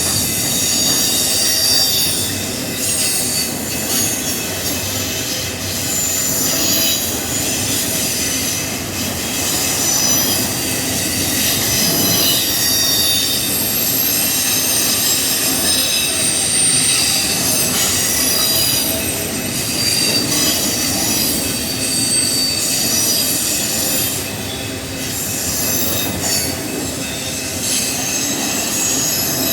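Union Pacific auto rack freight cars rolling past, a steady rumble of wheels on rail overlaid with high-pitched wheel squeal that keeps shifting in pitch and coming and going.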